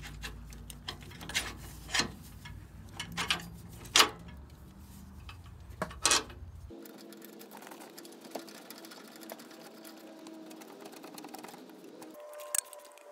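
Scattered sharp metal clicks and knocks from hands working a new aftermarket upper control arm and its bolts into place on the front suspension, about half a dozen in the first six seconds. After that only a faint steady background hum remains, with a click or two near the end.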